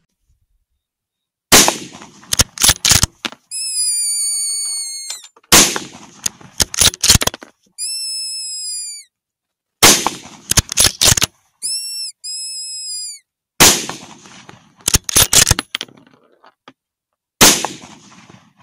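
.223 rifle firing five shots, about four seconds apart starting about a second and a half in, each loud crack followed by a quick run of sharper cracks. Three times between the shots comes a high, wavering whistle-like squeal lasting a second or two.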